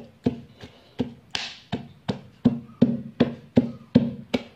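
Wooden pestle pounding shrimp paste, shallots and chilies in a deep mortar: a steady rhythm of dull knocks, about three strokes a second.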